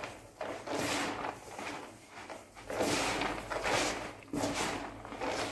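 Gloved hands turning over and mixing ground meat with spices in a large plastic tub, blending the sucuk mixture before kneading: a rustling, wet scrubbing of the mince that comes and goes in spells with the strokes of the hands.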